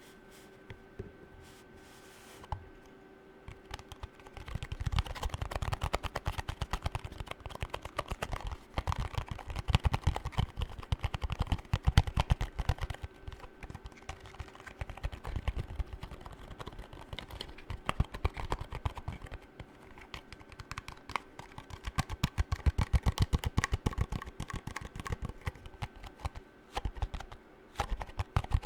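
Fast fingernail tapping: dense runs of quick, light clicks that begin about four seconds in, with a short pause a little past the middle.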